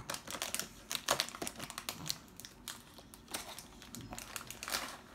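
Packaging crinkling in small hands, a run of irregular small crackles and clicks.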